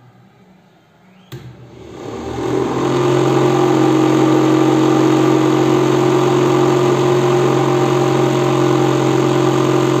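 A rocker switch clicks on about a second in, and the 12 V DC motor fan inside a homemade plastic dustbin cooler spins up over a couple of seconds, then runs with a steady hum.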